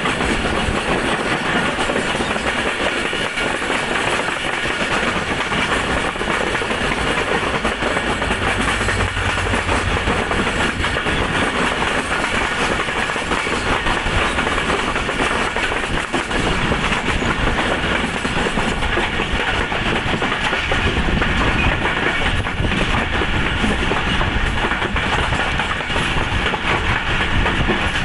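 A Pakistan Railways Khyber Mail passenger train heard from aboard its coaches while running: a continuous rumble of wheels on the rails, steady rushing noise and a rapid clatter of clicks, with no letup.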